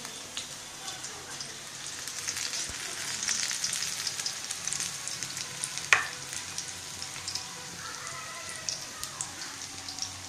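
Onion and besan (gram-flour) pakoras deep-frying in hot oil in a kadai: a steady sizzle with fine crackling that swells a couple of seconds in, then eases, with one sharp click about six seconds in.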